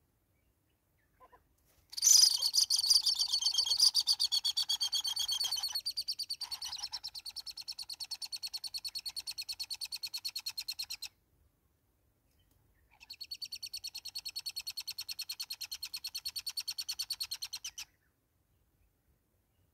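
Red-billed hornbill calling: a long, rapid, even series of repeated notes that starts about two seconds in, loudest at first, then after a short pause a second, shorter run.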